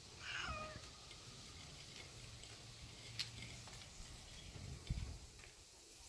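A domestic cat meows once just after the start, a short call falling in pitch. A sharp click follows a few seconds later, and a low thump comes near the end.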